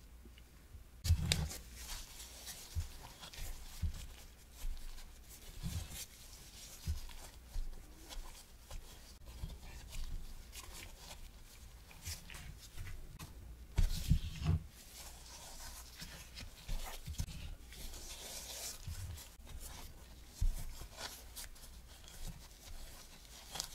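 Gloved hand rolling a fried doughnut through a bowl of fine coating powder: soft, irregular brushing and rustling of powder and glove, with dull thuds as the doughnut knocks and presses against the ceramic bowl, the loudest about a second in and again about 14 s in.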